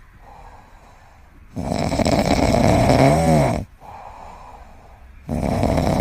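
Loud rasping snoring: a long noisy snore about every three and a half seconds, with quieter breathing between. The middle snore carries a brief wavering whistle-like tone near its end.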